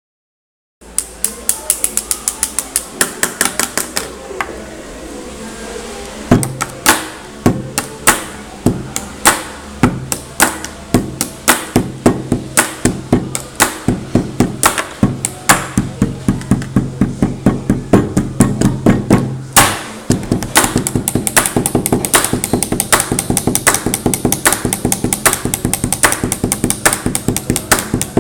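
Pens tapped rhythmically on a wooden desk in a fast drumming pattern, with a music backing track and its steady bass line underneath. The taps start about a second in and grow denser and quicker in the second half.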